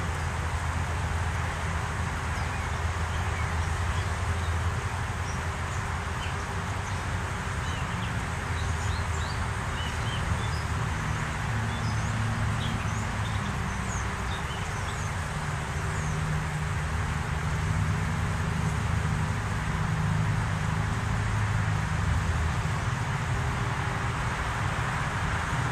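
Honey bees humming over an open hive, a steady drone that swells and shifts in pitch. Faint short bird chirps are scattered through it, mostly in the middle.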